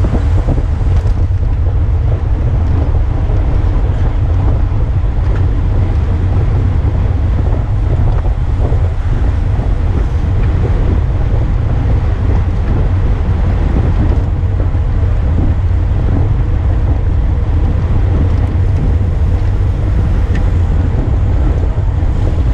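Loud, steady wind rumble on a handlebar-mounted camera's microphone as the bicycle rides in a racing pack.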